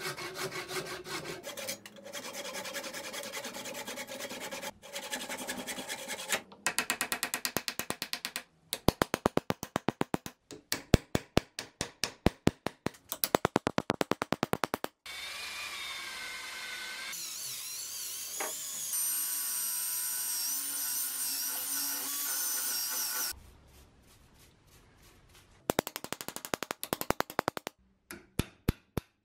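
Hand saw cutting through the broken wooden handle stub left in an axe head's eye, in quick strokes that grow louder and more distinct after about six seconds. About halfway through the sawing stops and a power tool whines steadily for several seconds, its pitch wavering, then a quick run of sharp metal strikes comes near the end as the wood is driven out of the eye.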